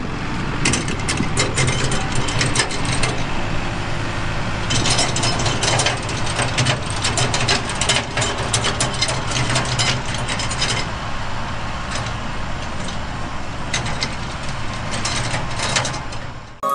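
Plastic toy tractor and dumper trailer handled and pushed over gravelly dirt: a dense run of small clicks and crunching from the wheels and plastic parts, in spells, over a low steady rumble.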